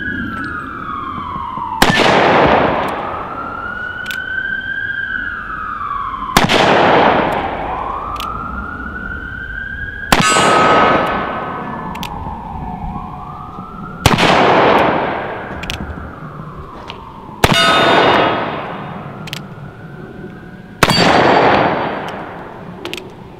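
Six shots from a .45 Colt single-action revolver, a Pietta-made Single Action Army replica firing black powder cartridges, spaced about four seconds apart. Each shot trails off for a second or two. A siren wails up and down behind the shots.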